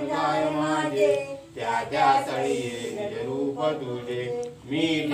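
Unaccompanied devotional singing of a Marathi hymn to Ganesh, with long held notes and short breaks between lines.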